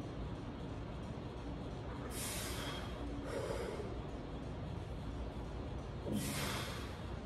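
A lifter's hard, forceful breaths while bench pressing a heavy barbell: two close together about two seconds in and another about six seconds in, over a steady low background hum.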